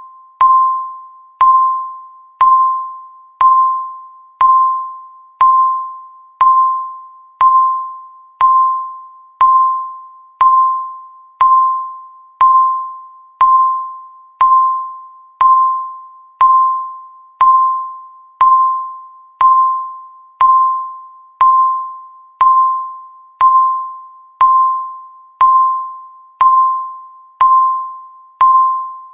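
Countdown timer tick: a short, bell-like electronic ding at one steady pitch, struck once every second and fading quickly after each strike.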